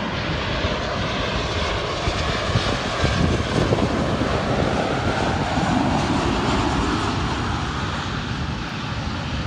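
Turbofan engines of a KLM Embraer E-Jet airliner, low on final approach and touching down: a steady jet engine noise that swells slightly around the middle.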